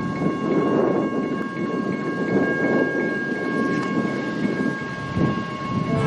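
SNCF TGV Sud-Est high-speed train sounding its horn: a long, steady high two-note blast over the rumble of the running train. The horn notes fade out near the end while the rumble goes on.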